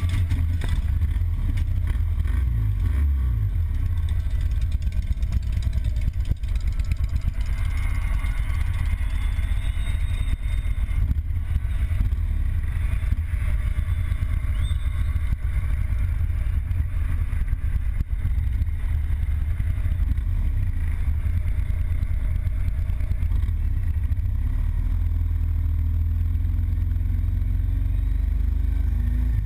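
Harley-Davidson Road Glide Custom's V-twin engine running as the motorcycle rides off, heard from a camera mounted on the bike. The engine note rises and falls a few times in the first few seconds, then settles into a steady run with road and wind noise.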